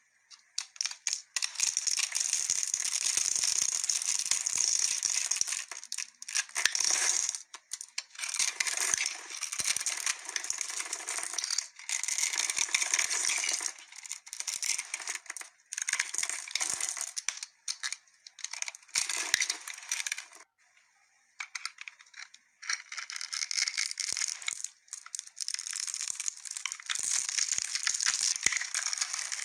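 A blade carving and scraping soap, giving crisp crackling scratches in runs of a few seconds with brief pauses between strokes and a longer pause about two-thirds of the way through.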